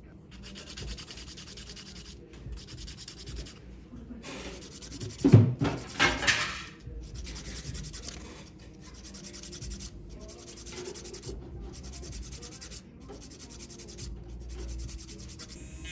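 A hand nail file rasps back and forth across a toenail in rapid strokes, in runs broken by short pauses. About five seconds in, a brief, much louder sound rises and falls.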